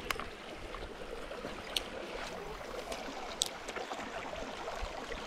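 Shallow rocky creek trickling steadily over stones, with a few light clicks, about three, spread through it.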